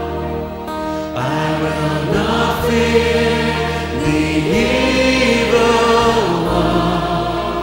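Choral hymn music: a choir singing sustained chords with accompaniment.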